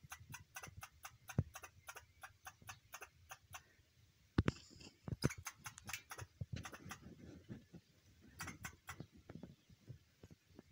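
A squirrel chattering: bouts of rapid, sharp clicking calls at about five a second, a long bout at first, then two shorter ones. A few low thumps are heard between them.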